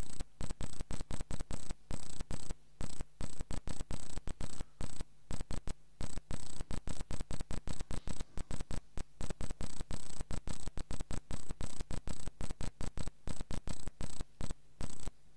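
Electrical static and hum, cutting in and out irregularly several times a second.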